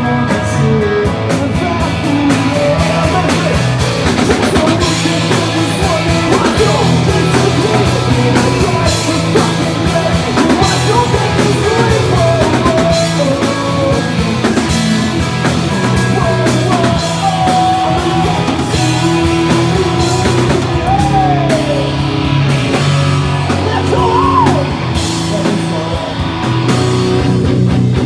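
Live pop-punk band playing loud: drums, electric guitars and a singer.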